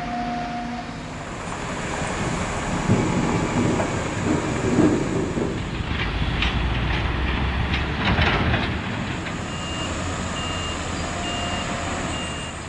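Construction-site heavy machinery running with a low engine rumble, with a run of knocks and rattles midway. A vehicle's reversing alarm beeps steadily, about twice a second, over the last few seconds.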